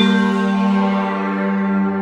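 Ambient synthesizer music: a held chord with bell-like overtones, sustained without a break.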